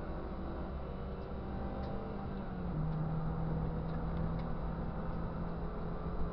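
Race car engine heard from inside the cabin on track, running steadily under load with road rumble. The engine note grows stronger and louder about three seconds in, with a few faint ticks and rattles.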